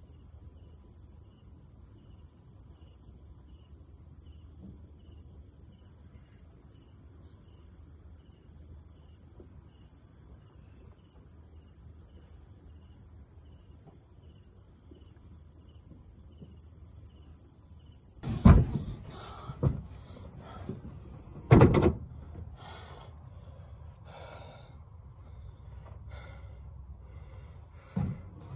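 Crickets trill steadily with a faint regular chirping. About two-thirds in, the trill cuts out and heavy thuds and knocks follow at a car's open hatchback boot, three loud ones a second or two apart, then lighter knocks and one more thud near the end.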